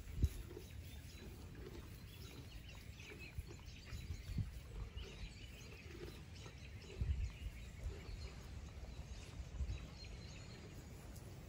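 Farmyard outdoor ambience: faint, scattered bird chirps over a steady background hiss, with a few low thumps.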